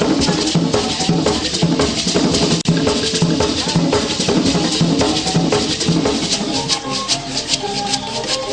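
Traditional Baganda drums and shakers playing a fast, steady dance rhythm.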